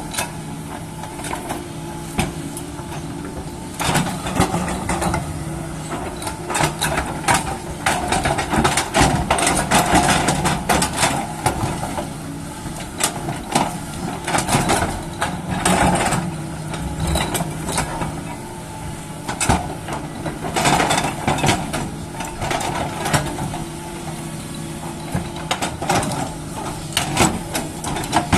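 JCB excavator's diesel engine running steadily under work, with frequent clanks and knocks scattered across it.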